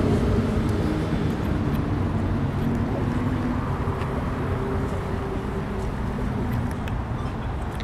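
A motor engine running steadily under a wash of traffic noise, slowly fading.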